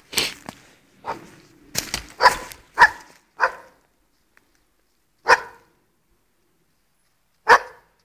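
Dog barking: a quick run of about six barks in the first three and a half seconds, then two single barks about two seconds apart.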